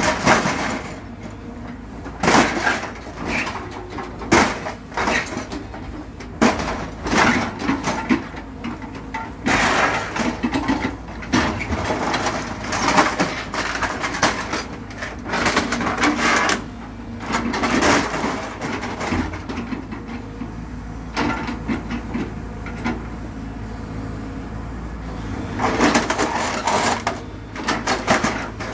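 Excavator's hydraulic grapple gripping, dragging and dropping scrap sheet metal and car parts, with irregular metallic clattering, crunching and scraping over the steady low running of the machine's engine.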